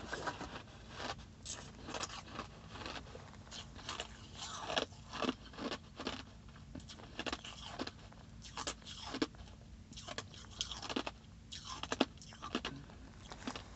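A person chewing a mouthful of ice close to the microphone, with many sharp, irregular crunches.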